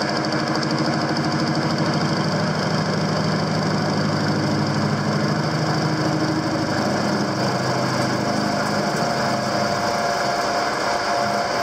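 Metal lathe taking a heavy, hand-fed facing cut on a round bar in a four-jaw chuck. The steady running of the machine carries a fast, even knocking, the sign of an interrupted cut: the tool strikes the part once each turn. The knocking eases off in the last few seconds.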